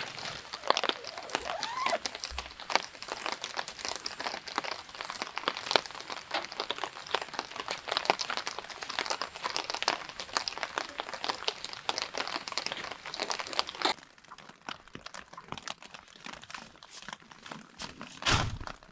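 Tent fabric being handled and shifted during pitching, a dense crinkling and rustling full of quick crackles. About 14 seconds in it turns quieter and sparser, and there is one soft low thump near the end.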